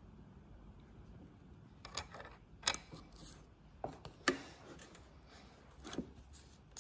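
About five faint, scattered clicks as the top nut is handled and fitted onto the threaded steering stem of a Honda CRF450R by hand.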